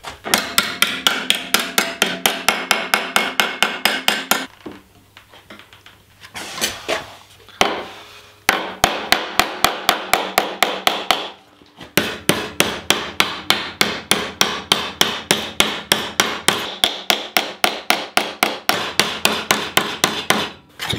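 Hammer blows on a small sheet-metal blank clamped over an MDF former, folding it over the edge into a bracket: rapid, even strikes about four a second, each with a short metallic ring, in three runs broken by two brief pauses.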